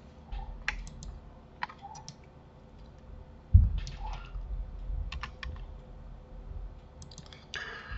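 Computer keyboard keys and mouse buttons clicking in scattered single clicks, with a louder dull thump about three and a half seconds in.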